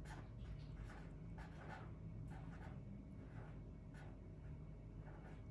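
Faint scratching of handwriting: short, irregular strokes with small pauses between them, over a low steady room hum.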